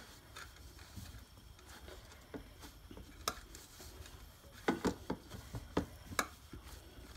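Hands kneading a stiff, crumbly maida dough in a steel bowl: soft pressing and rubbing noises with scattered light taps against the metal, a few louder knocks about five and six seconds in.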